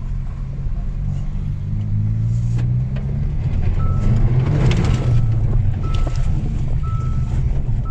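Hyundai i30 N's turbocharged 2.0-litre four-cylinder engine running under way, heard from inside the cabin, its pitch rising as it pulls about two seconds in, with a rush of noise around the middle. From about four seconds a short high beep repeats about once a second.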